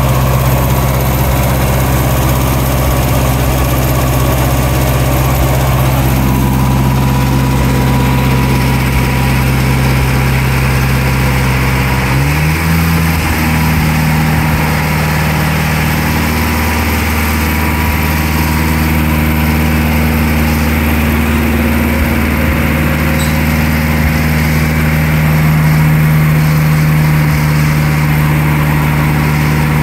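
Wisconsin W4-1770 air-cooled four-cylinder gasoline engine running steadily; about twelve seconds in its speed steps up and holds at the higher speed.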